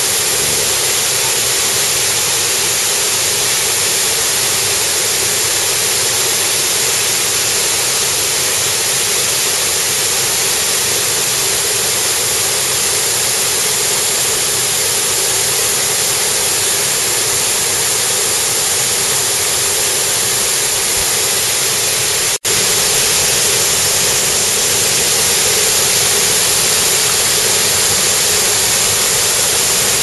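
Steady rushing of a waterfall and fast-flowing river water, with a momentary drop-out about 22 seconds in.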